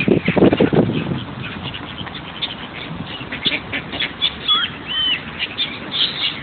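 Mallard ducks quacking as they are fed bread, loudest in the first second, with short calls running on throughout. A few short whistled calls come about four to five seconds in.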